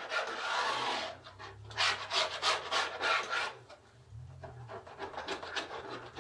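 Spatula stirring and scraping across the bottom of a large cast iron skillet of sausage gravy, in repeated strokes with a short break just past the middle.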